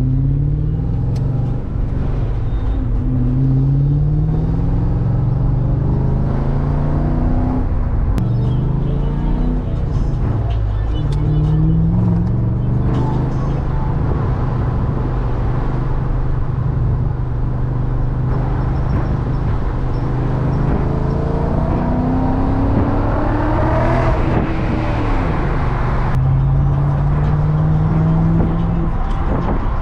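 BMW E39 M5's S62 V8 engine heard from inside the cabin, pulling up through the gears: the pitch rises and drops back at each upshift several times in the first dozen seconds, holds steady at cruise, then climbs again twice near the end.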